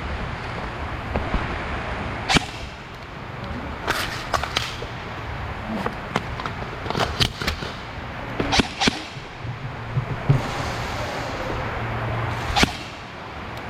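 Airsoft guns firing during a game: scattered sharp single cracks, some in quick runs of two or three, over a steady outdoor hiss.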